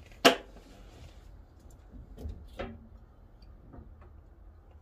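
A sharp click just after the start, then a few softer clicks and knocks: small parts and a tool being handled at close range.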